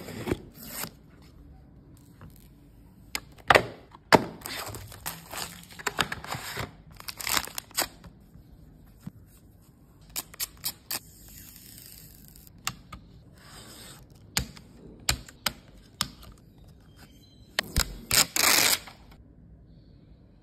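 Close-up unboxing handling sounds: a blade slitting packing tape on a cardboard box, then a run of sharp plastic clicks, crinkling and tearing of packaging and screen-protector film, with a loud rustle about eighteen seconds in.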